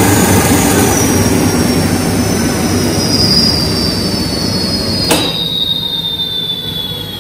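QS 8 kW electric hub motor in a motorcycle's rear wheel spinning off the ground and slowing down, its high whine falling steadily in pitch over a fading rumble. A single sharp click about five seconds in.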